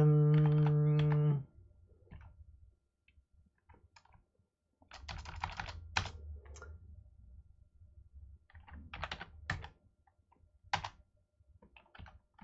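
Typing on a computer keyboard in short bursts of keystrokes, the busiest run about five seconds in, with single key presses scattered between. At the start a man's voice holds one steady note for about a second and a half.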